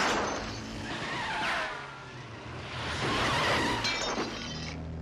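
Car tyres squealing and skidding, with a shattering crash, in two loud surges: one at the start and one about three seconds in.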